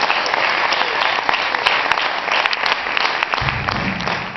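Audience applauding, a dense patter of hand claps that thins out toward the end, with a low rumble in the last second.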